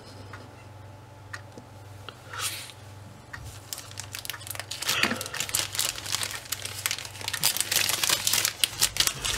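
Clear plastic bag from a model kit crinkling as it is handled with a sprue inside. A few faint clicks at first, then dense crackling from about four seconds in that grows busier toward the end.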